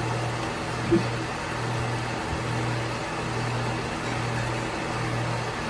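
Steady hiss of room background noise with a low hum that comes and goes, and one short soft sound about a second in.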